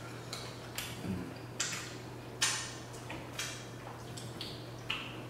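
Eating sounds from king crab legs: a string of about ten short, irregular clicks and crackles of shell being handled and mouth sounds, over a low steady hum.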